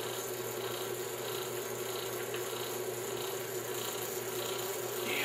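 Electric motor of a bench grease test machine running, turning the test wheel against a steel specimen coated in grease under load. It gives a steady hum with a faint pulse that repeats about one and a half times a second.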